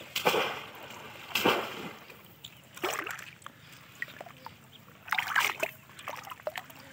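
Shallow pond water splashing as bamboo polo fish traps are thrust down into it and hands reach in through them, in four separate bursts of splashing about a second or more apart.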